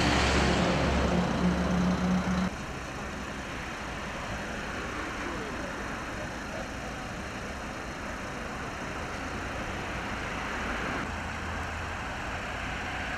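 A Mercedes-Benz fire truck's diesel engine running close by with a steady low hum, which cuts off abruptly about two and a half seconds in. After that there is only the steady hiss of road traffic.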